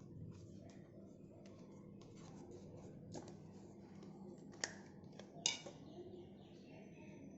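Small plastic clicks and handling scrapes of a Nokia 105 feature phone as its battery and back cover are fitted, with two sharp snaps, one about four and a half seconds in and a louder one about five and a half seconds in.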